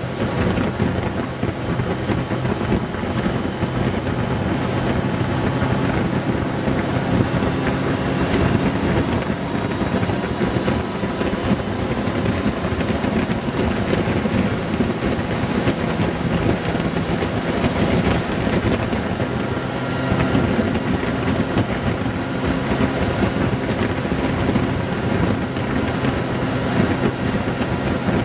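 Honda Gold Wing 1800's flat-six engine running at a steady cruising speed, a constant hum with wind rushing over the microphone.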